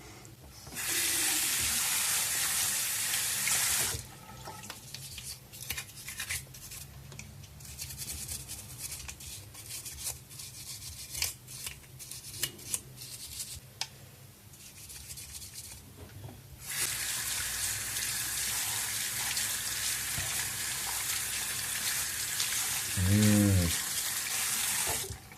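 Tap water running into a sink while a small metal computer bracket is washed, in two long stretches. Between them come quieter scattered clicks and rubbing as the bracket is handled and scrubbed.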